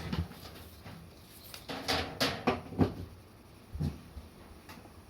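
Several short knocks and clicks about two seconds in and one more near four seconds: parts of a Hitachi DE-N55FX clothes dryer knocking as they are moved by hand to find the source of its abnormal noise.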